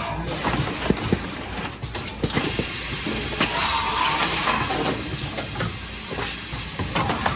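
Automatic carton case form-fill-seal machine running, with spells of air hiss from its pneumatic cylinders over steady mechanical clicking and clatter.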